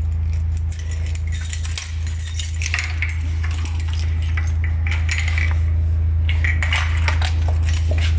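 Keys jangling and clinking at a door lock in short bursts, a few seconds in and again near the end, over a steady low hum.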